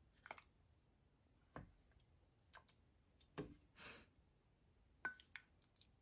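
Faint, scattered clicks and knocks of a silicone ladle against a stainless steel pot and a ceramic bowl as curry is ladled into the bowl, with a short wet slosh of sauce just before four seconds in and a clink with a brief ring about five seconds in.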